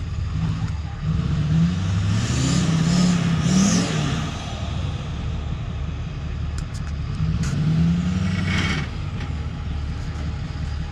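Ford F-450 pickup's engine revving up twice against the brakes as it is brake-torqued to push the rear end sideways, the pitch rising with each rev over a steady low idle.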